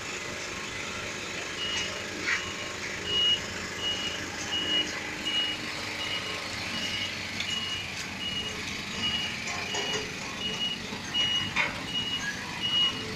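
Reversing alarm on a road-paving vehicle, beeping at a steady high pitch about once every 0.7 seconds from about two seconds in, over its running engine.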